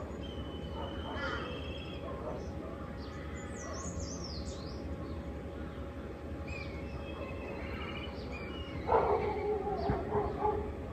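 Birds chirping and whistling, with a dog barking several times from about nine seconds in.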